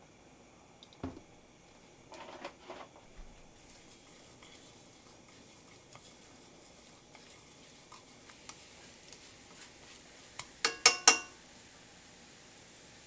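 Kitchen utensils and cookware knocking and clinking: a dull knock about a second in, a short run of light knocks, scattered small clicks, then a quick run of loud, ringing metal clinks near the end.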